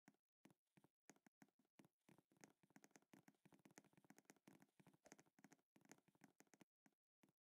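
Faint computer keyboard keystrokes, typed in a quick, irregular run of clicks that comes thickest in the middle and breaks off briefly near the end.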